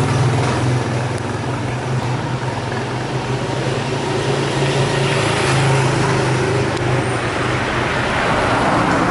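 Street traffic noise carried by a steady low engine hum from a motor vehicle running close by.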